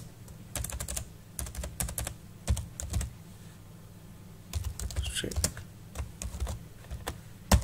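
Typing on a computer keyboard: quick runs of keystrokes, a pause of about a second a little past halfway, then more keys and one louder key click near the end.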